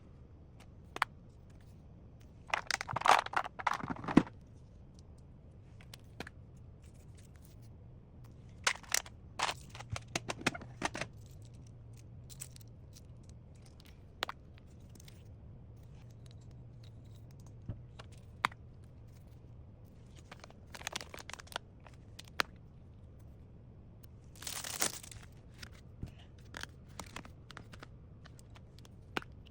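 Packaging being handled and torn open: several short bursts of tearing and crinkling, with scattered small clicks and taps between them.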